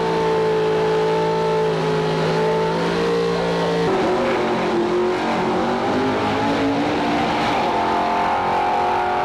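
Car engines running hard during drag-strip runs. One engine note holds steady at a high pitch and cuts off suddenly about four seconds in. Another engine note follows, wavering and rising near the end.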